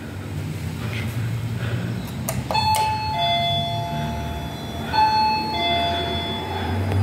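Electronic doorbell chime sounding a two-note ding-dong, high note then a lower held note, rung twice: about two and a half seconds in and again about five seconds in.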